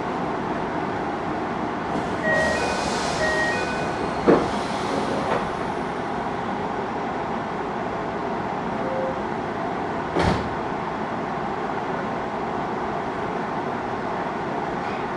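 Steady hum inside a standing 733-series electric train, with a sharp knock about four seconds in and another about ten seconds in.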